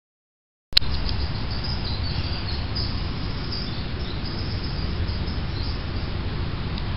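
Outdoor ambience that starts abruptly after a second of silence: a steady low rumble on the microphone, with faint high chirps in the first few seconds.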